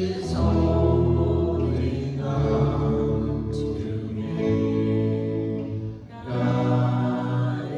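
Slow worship music with held chords, guitar and singing, moving in long sustained phrases.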